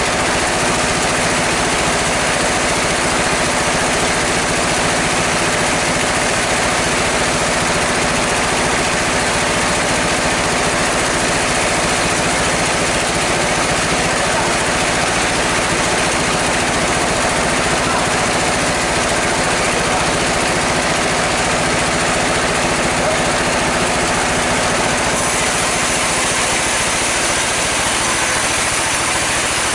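A sawmill's powered log saw running steadily while mahogany logs are fed through it by hand, a loud, even machine drone mixed with the saw cutting the wood.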